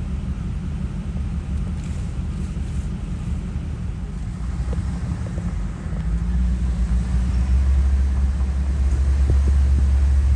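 A Jeep engine rumbling low and steady as it drives off-road, getting louder about six seconds in as it takes more throttle.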